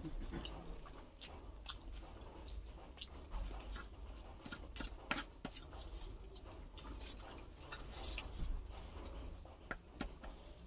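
Close-up eating sounds: a person chewing, with irregular wet mouth clicks and smacks, over a low steady hum.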